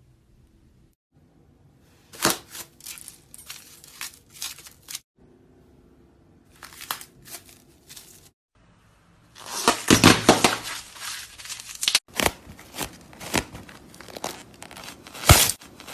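Slime being squeezed and pressed, its trapped air bubbles popping in sharp clicks and crackles. A dense run of crackling comes around the middle, with short quiet breaks where the sound cuts off abruptly.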